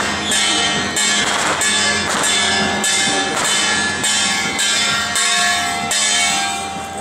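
Brass hand gong of a Mazu palanquin procession struck in a steady beat, each metallic strike ringing on into the next.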